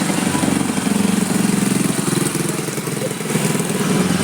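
A small engine running steadily with an even, fast throb.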